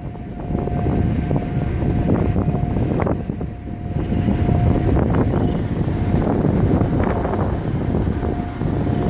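Steady low rumble of a ship under way, with wind buffeting the microphone and a faint steady hum coming and going.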